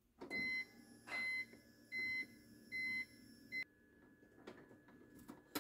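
Car's electronic warning chime beeping four times, about one beep a second, then a short fifth beep that cuts off, as the ignition is switched on. A faint steady electrical hum runs under the beeps.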